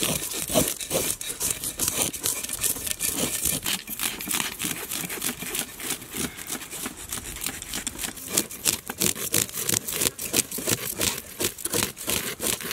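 Knife blades scraping the scales off red pomfret fish, a quick, irregular run of rasping strokes, several a second.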